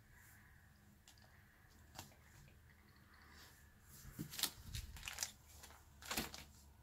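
Clear plastic binder pocket pages crinkling and rustling as they are handled and a page is turned. There are a few short crackles from about four seconds in, after a faint quiet stretch.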